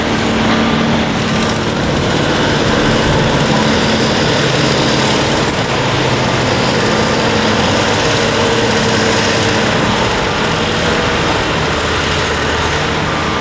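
Heavy diesel engines of a coal hauler and front-end loaders running steadily and loudly.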